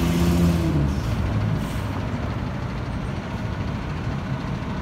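School bus driving past close by: its engine hum is loudest in the first second and a half, with short hisses near the start and about a second and a half in, then it fades into steady low engine noise.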